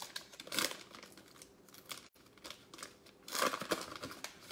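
Foil wrapper of a Panini Chronicles football card pack being torn open and crinkled by hand, in crackly bursts, loudest about half a second in and again near the end.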